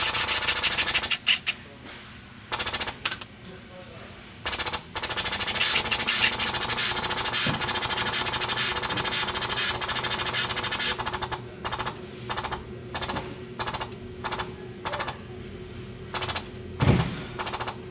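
Pneumatic actuator and its Siemens positioner pushing air in loud, chattering hisses as they drive a butterfly valve from fully open toward its 10 mA mid position. A long burst lasting several seconds gives way, about two-thirds through, to short bursts about twice a second as the positioner settles on the setpoint.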